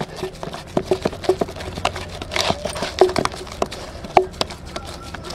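Steel lota being pressed and pushed through warm mashed potato in a steel plate: irregular clinks and knocks of steel on steel, some with a brief metallic ring.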